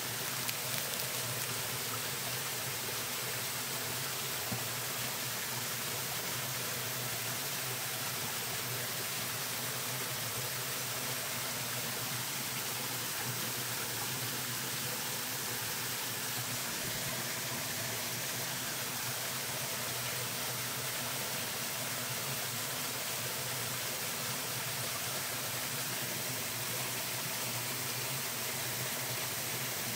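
Steady rushing of a mountain stream.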